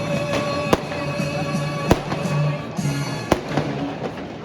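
New Year's Eve fireworks and firecrackers going off. Three loud bangs come about a second apart among smaller pops and crackling, with music playing underneath.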